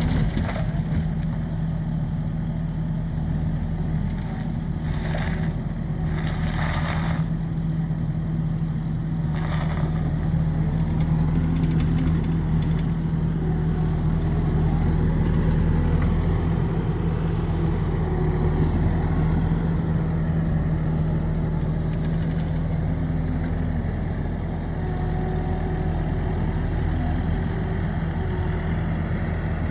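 Skid steer engine running steadily, with three short bursts of noise about five to ten seconds in.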